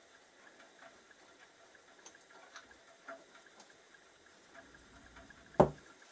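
Faint, scattered light ticks and taps of small metal parts and hand tools being handled, then one sharp knock near the end as something is set down hard.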